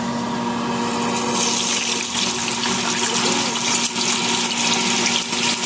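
French fries going into hot oil: the oil sizzles, and the sizzle rises sharply into a loud, steady hiss about a second in. A steady hum runs underneath.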